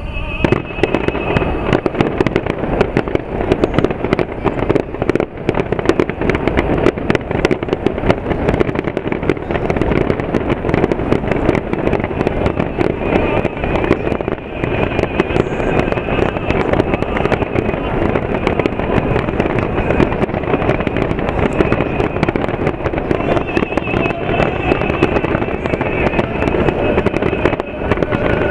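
Fireworks finale barrage: a dense, continuous stream of bangs and crackles that starts suddenly and runs on without a break.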